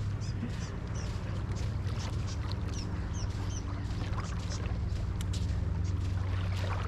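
Birds chirping in many short, quick calls over a steady low hum.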